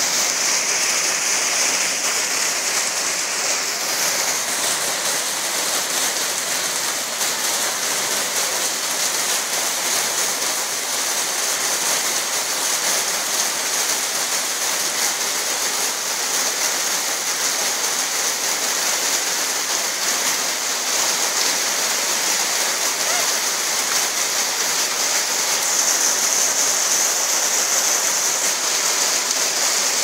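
Steady rain, with rainwater pouring from the top of an overflowing drainpipe and splashing down: an even, unbroken hiss of falling water.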